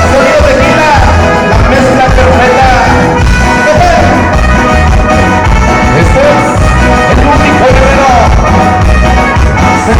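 Loud Latin dance music with a steady bass beat and a gliding melody line, possibly with singing, played at full volume.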